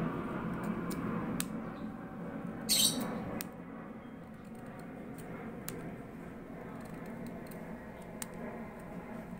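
Knife blade shaving the end of a small avocado twig into a wedge for grafting: scattered small ticks and light scrapes, with one louder scrape about three seconds in.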